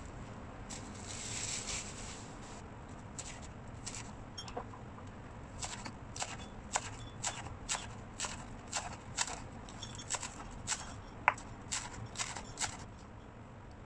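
Plastic bag crinkling and rustling as green onions are handled, then a kitchen knife chopping green onions on a wooden cutting board, about two sharp chops a second, stopping near the end.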